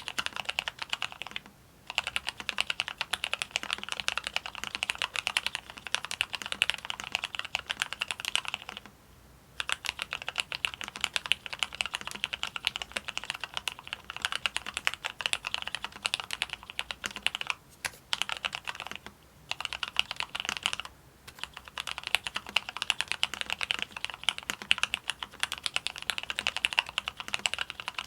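Rapid typing on a mechanical keyboard with Cherry MX Black linear switches: a dense, continuous run of keystroke clacks, broken by a few short pauses of about half a second to a second.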